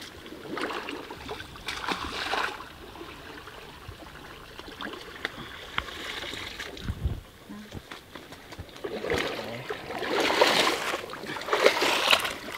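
Shallow pond water splashing as a person wades and pushes a woven basket through it, in several bursts. The splashing is loudest and longest in the last few seconds.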